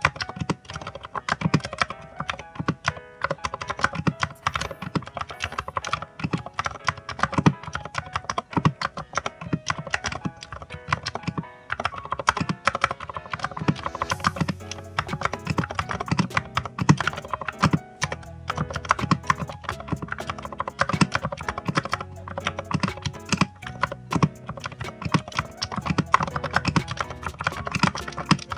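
Fast continuous typing on an EK87 keyboard, a dense stream of key clicks and clacks, with background music playing underneath.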